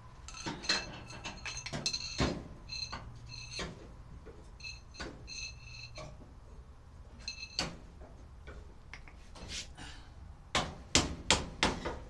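Metal clinking and knocking of hand tools against a clothes dryer's sheet-metal cabinet. A ringing metallic jingle comes and goes several times, then four sharp knocks come in quick succession near the end.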